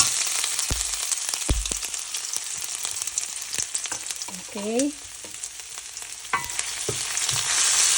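Chopped ginger sizzling as it fries in hot oil in a pan, a steady hiss broken by a few sharp knocks. The sizzle eases a little midway and builds again near the end.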